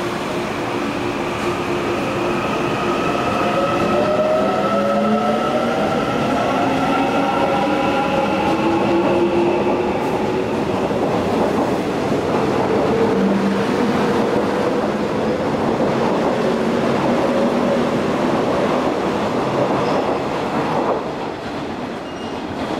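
Korail 311000-series Line 1 electric multiple unit pulling out of a station. Its inverter-driven traction motors give several whining tones that rise in pitch as it gathers speed, over the rumble and clatter of the wheels on the rails. The sound falls away near the end as the train leaves.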